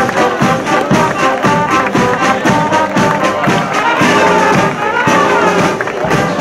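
Brass band playing, with a steady bass drum beat about twice a second under the horns.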